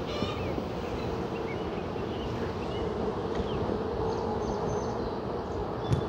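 Honey bees buzzing steadily around an opened hive during a frame inspection, with a single sharp knock near the end.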